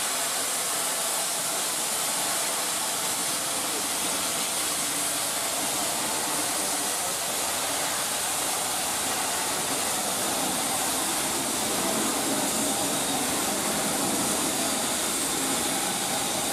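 Steam locomotive releasing steam: a loud, steady hiss that does not let up.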